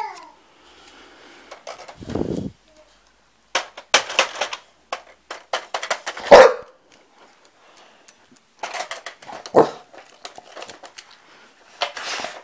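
American Staffordshire terrier pawing at a plastic toy keyboard: clattering clicks of paws on the plastic keys, broken by a few short dog barks, the loudest about six seconds in.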